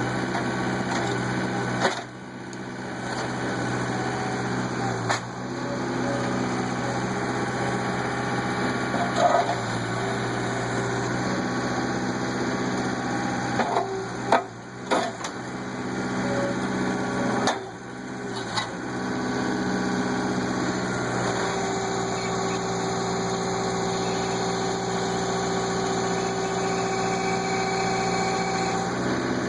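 Skid steer engine running steadily as the machine works a backhoe bucket attachment. A few sharp clanks and brief dips in the engine sound come a couple of seconds in and again around the middle.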